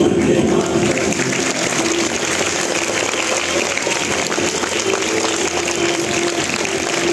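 Audience applauding, the clapping starting as the singing before it ends.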